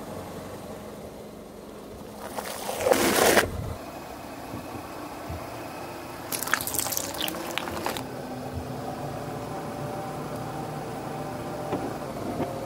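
Car tyre rolling onto a plastic bottle and crushing it: a burst of plastic crackling and cracking about halfway through. A louder noisy burst comes about three seconds in, and a car engine runs steadily underneath.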